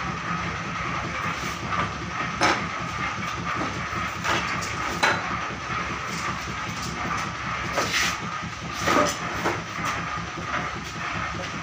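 Metal clinks and knocks of steel moulds and press parts being handled at a hand-operated screw press, about five at irregular intervals, over a steady hiss with a faint constant tone.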